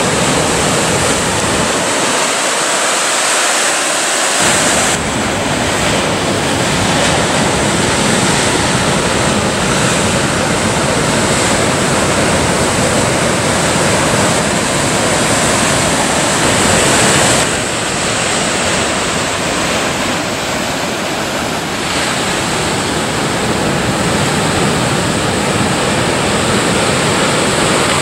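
Ocean surf: waves of about 3 to 5 feet breaking and washing against the cliffs in a steady rush, with some wind on the microphone.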